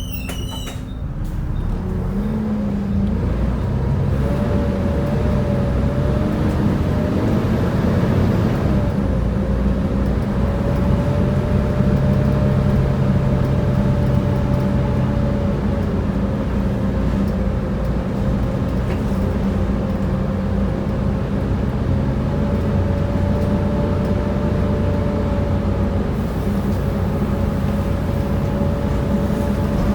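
Volvo B7TL bus's diesel engine pulling away, its pitch rising over the first few seconds, then running steadily under a hydraulic cooling fan whose roar and steady whine sounds like hoovering.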